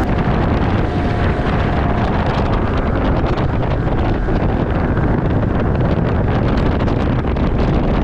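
Heavy wind buffeting the microphone over the bass boat's outboard motor running at speed, a steady, even rush.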